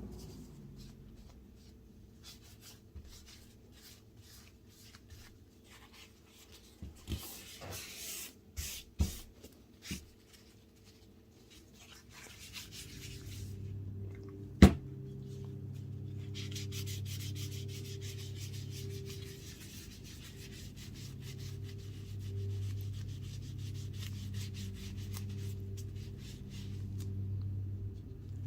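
Rubbing and scraping on leather during handwork, with scattered light ticks and a few knocks, and one sharp knock about 15 seconds in. Then steady rubbing over a low hum.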